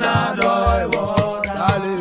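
Background music: a sung melody over a steady beat, with a low thump about once a second and quicker percussion strokes between.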